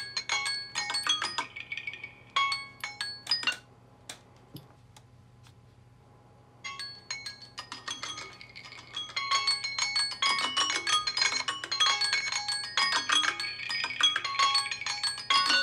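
Ringtones and alarm tones from several Samsung Galaxy phones playing at once, a tangle of short chiming melodic notes. They stop about four seconds in, leaving near quiet for a couple of seconds, then start up again and grow denser as more phones join.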